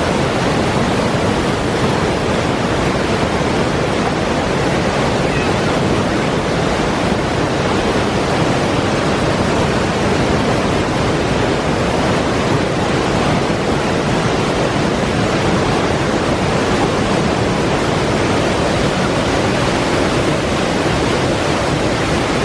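Large waterfall: a steady, loud rush of falling water that does not change.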